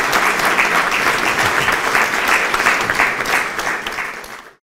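Audience applause, many people clapping together, fading a little in the last second before it cuts off abruptly.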